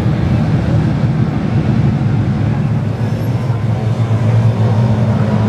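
A pack of speedway saloon cars racing on a dirt oval, their engines blending into a loud, steady low drone.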